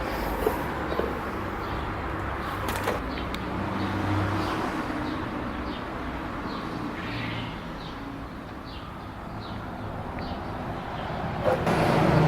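Steady outdoor background of traffic and hiss, with a few light clicks in the first seconds, faint short chirps in the middle, and a knock followed by a louder swell near the end.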